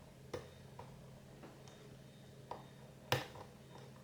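Small, sharp clicks and taps of a pick working the rotating discs inside an Oxford Scoot XA5 disc-detainer alarm disc lock, a few scattered clicks with one louder one about three seconds in.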